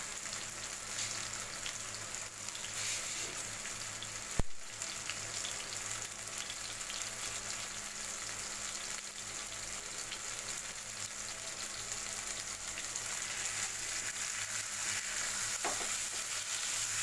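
Chilli-masala-coated fish steaks sizzling steadily as they shallow-fry in a little oil in a non-stick pan, with one sharp click about four seconds in. Near the end a spatula works in the pan to turn the fish over.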